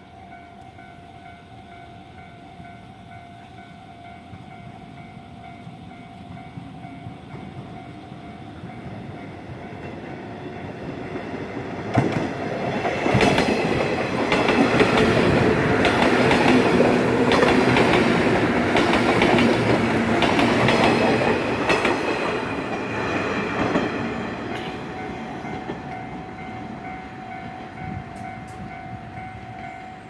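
JR West 103 series electric train passing close by at a level crossing, its rumble and wheel clatter building to a loud peak in the middle and fading away near the end. The crossing's warning bell rings steadily over it, heard clearly before the train arrives and again as it leaves.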